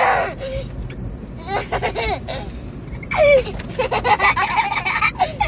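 Young boys laughing in three bouts, the longest in the second half, over the low rumble of a car cabin.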